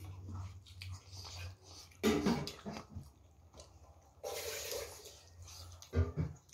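Wet squishing of fingers working rice and curry on a banana leaf, coming in a few short separate bursts.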